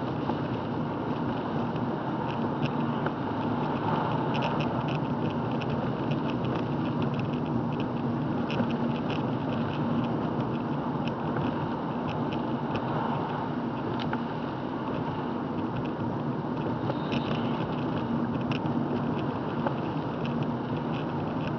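Steady road and engine noise of a car driving on a wet road, heard inside the cabin, with faint light ticks scattered through it.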